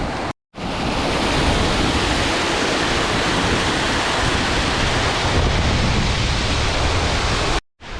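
Waterfall: a steady rush of falling water close by. It breaks off in brief dropouts to silence about half a second in and again near the end.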